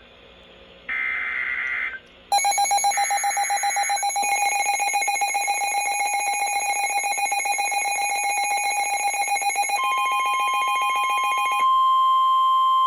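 Emergency Alert System signals. One short screechy burst of SAME digital header data, then from about two seconds in a loud, rapidly pulsing alert tone. Near ten seconds a steady higher single tone joins it, and the pulsing tone drops out near the end, leaving the steady tone.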